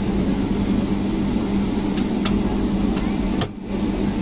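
Boeing 757-200's jet engines at taxi power, heard inside the cabin as a steady drone with a low hum. Two faint clicks come about two seconds in, and the sound dips out briefly about three and a half seconds in.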